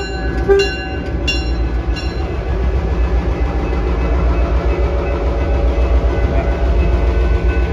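Diesel-electric locomotive rumbling steadily as it rolls slowly past. A level-crossing bell dings about twice a second for the first two seconds, then stops.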